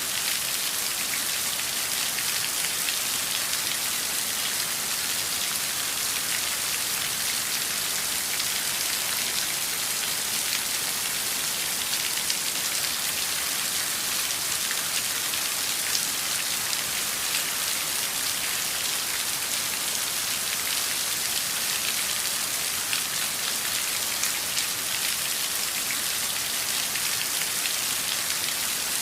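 Heavy downpour of rain, a steady dense hiss of drops with many fine patters, unchanging throughout.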